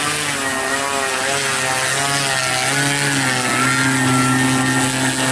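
Motor and rear pusher propeller of a large RC model aircraft running as it taxis on pavement. The pitch wavers up and down as the throttle changes, then settles into a steadier hum in the second half.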